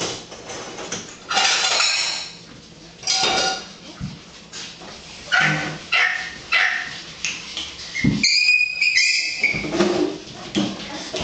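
Pomeranian puppies yipping and barking in short bouts, with a longer, higher-pitched yelp about eight seconds in.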